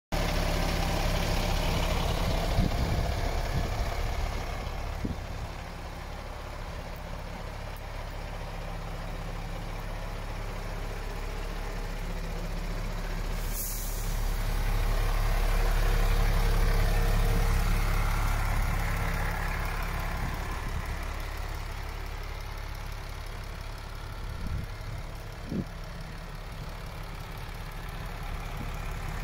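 MAN TGX 18.400 tractor unit's inline-six diesel idling steadily, growing louder for a few seconds past the middle. A brief high hiss comes about halfway through.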